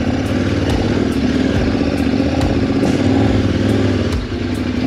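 KTM 1190 Adventure's V-twin engine running steadily as the motorcycle pulls through soft, powdery sand on a dirt track.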